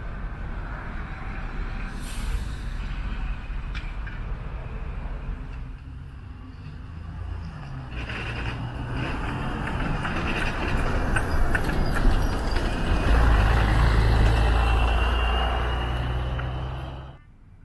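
Articulated city bus driving past close by: its engine rumble builds over several seconds to the loudest point as it goes by, with a rising whine near the end, over other bus and traffic noise. A brief hiss about two seconds in; the sound cuts off suddenly near the end.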